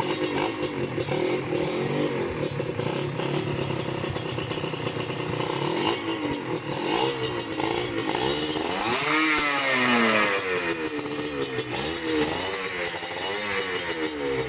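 A 1995 Honda NSR150RR's single-cylinder two-stroke engine runs through a stainless aftermarket exhaust, just after starting. It idles unevenly with small throttle blips, is revved up hard about nine seconds in and falls back, and gets a few shorter blips near the end.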